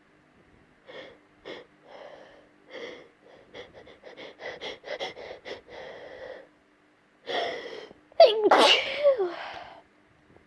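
A woman's breath hitching in a run of short catches that come faster and faster, then a deep inhale and one loud sneeze about eight seconds in. It is a stubborn sneeze being tickled out of the nose with a hair pin.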